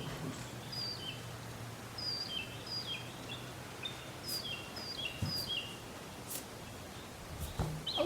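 A songbird calling over and over in short chirps, each a high note dropping to a lower one, with a faint low hum and a few sharp clicks behind it.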